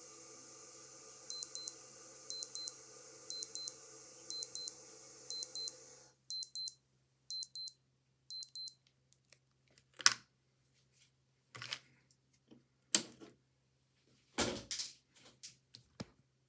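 Old digital watch alarm beeping: a high-pitched double beep about once a second, eight times. It is followed by a few sharp clicks and knocks, the loudest near the end, with a steady hiss underneath that cuts off about halfway through the beeping.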